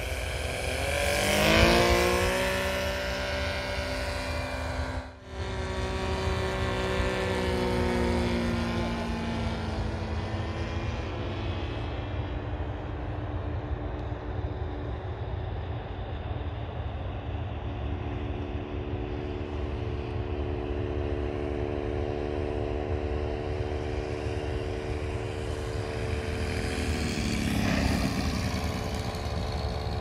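Saito FG-33R3 33cc three-cylinder radial gasoline engine on an RC Stearman biplane, running in flight. The engine swells as the plane passes close about a second or two in, its pitch dropping as it goes by, then holds a steady drone, growing louder again near the end.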